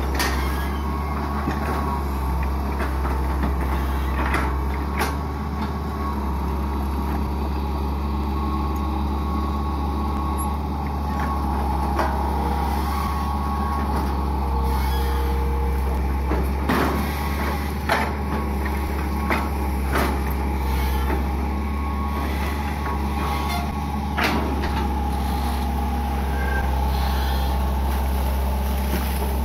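Hitachi EX120 long-reach excavator's diesel engine running steadily under hydraulic load while the boom and bucket dig mud out of a ditch. A few short, sharp knocks of the bucket and linkage stand out over the engine, the loudest about eighteen seconds in.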